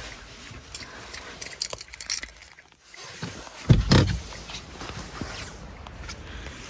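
Keys jingling and light rattling, then one heavy thud about four seconds in, like a car door being shut.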